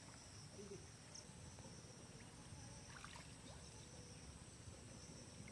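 Near silence: a faint, steady high drone of insects, with soft, small water sounds as hands work in shallow floodwater.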